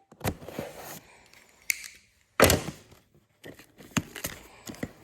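Cardboard box packaging being handled and opened: scraping and tearing, a loud thump about two and a half seconds in, then a run of quick clicks and taps.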